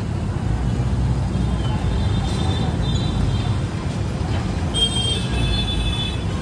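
Steady low rumble of road traffic, with faint high-pitched tones twice, around the middle and again a little later.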